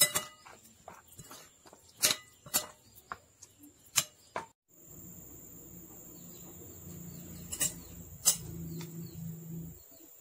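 A spoon clinks sharply against a plate of mixed fish roe a few times. After a cut, a steady low hum runs under a thin high whine, with two more clinks as the plate is handled.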